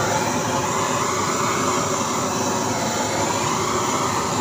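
Handheld butane cartridge blowtorch running, its flame jet giving a loud, steady hiss.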